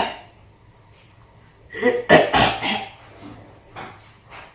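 A person coughing hard, a quick fit of three or four harsh coughs about two seconds in; the coughing is put on as a prank.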